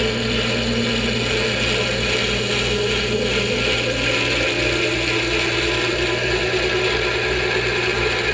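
1941 South Bend lathe running off a rotary phase converter, with a steady hum, while a twist drill in the tailstock bores into a spinning half-inch plastic cutting-board blank, peeling off long curled chips.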